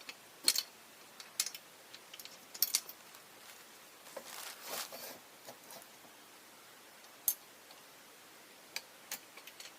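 Metal clevis pins and frame parts of a pontoon boat clicking and clinking as they are handled and fitted: scattered sharp taps, with a brief scraping sound about four to five seconds in.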